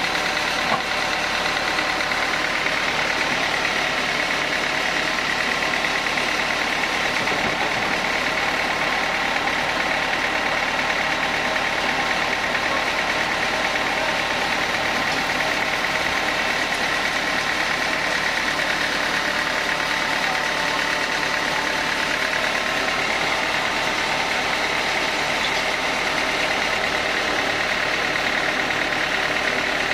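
Sawmill saw running steadily: an unbroken mechanical noise with a high whine held on one pitch.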